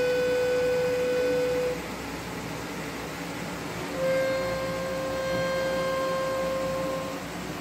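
Harmonium reeds sounding one held note that stops a little under two seconds in, then, about four seconds in, a second, slightly higher note held for about three seconds, over a steady background hum.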